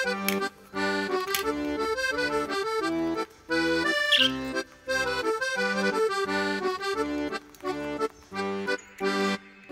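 Background music: an upbeat instrumental tune of short, separate notes.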